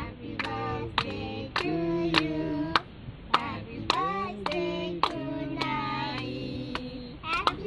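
Women and a young girl singing a birthday song together, clapping along at about two claps a second.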